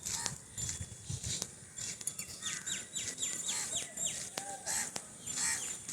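Birds calling and chirping, with a quick run of about eight short falling notes in the middle.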